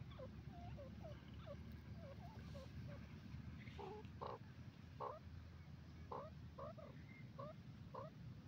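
Grey francolin giving a run of soft, short low calls: faint little notes at first, then louder ones about twice a second over the second half. A steady low rumble lies underneath.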